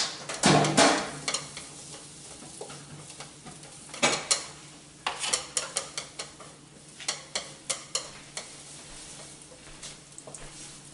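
Sliced onion sizzling in hot oil in a non-stick frying pan while it is stir-fried with long chopsticks, which clatter and tap against the pan: a louder clatter about half a second in and a run of quick taps between about five and eight seconds in.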